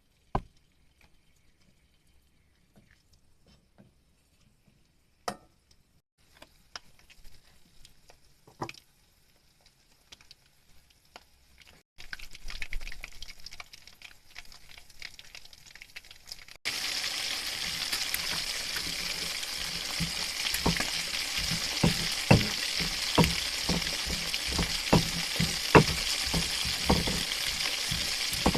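Food frying in hot oil in a pan: a steady sizzle starts suddenly a little past halfway, with many sharp crackles and pops through it, after a quieter stretch of a few clicks and a soft hiss.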